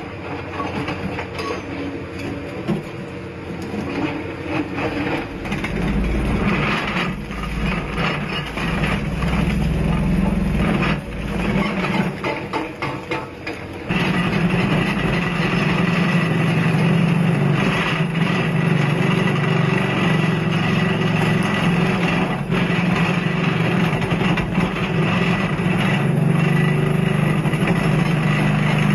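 Hydraulic rock breaker on an excavator's arm hammering rock in rapid blows, over the excavator's diesel engine. About halfway through it steps up louder.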